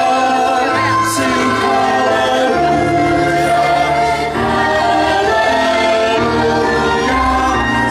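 A school choir of children and adults singing a song in several voices, held notes over a low bass accompaniment, amplified through an outdoor PA.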